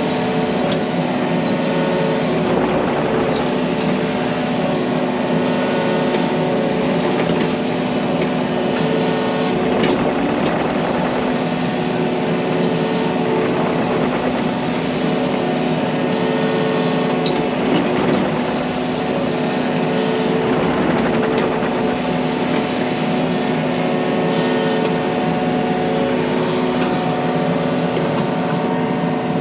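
Yanmar mini excavator's diesel engine running steadily at working throttle, heard close up from the operator's seat while the machine works its hydraulics.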